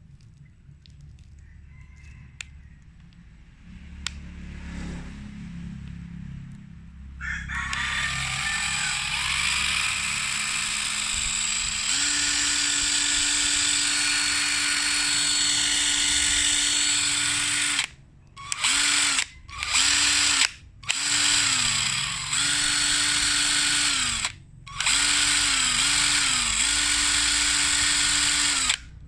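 Electric impact wrench motor spinning up and running steadily with no hammering heard, then the trigger is released and pulled again several times, the pitch falling each time it winds down, in a wrench the owner says is not working.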